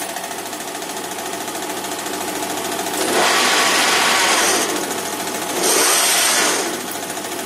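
1K62 lathe running with its headstock cover open: a steady hum from the motor and gearbox, and twice the friction clutch is engaged with the control lever, the headstock gear train and spindle spinning up into a loud whirring clatter for a second or so before dropping back to the idle hum. The repaired friction clutch now takes up the drive.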